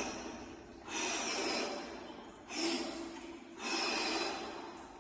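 A man breathing rapidly and heavily, a deep noisy breath about every second: the gasping of the cold-shock response while immersed in icy water, which he feels as being unable to breathe.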